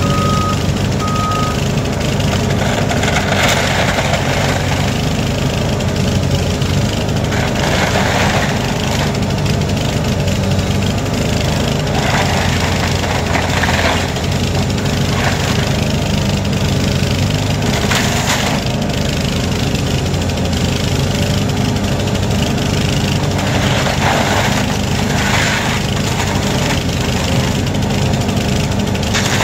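Heavy diesel demolition machinery runs steadily. A reversing alarm beeps at the start and stops about a second and a half in. A louder burst of noise comes and goes every few seconds.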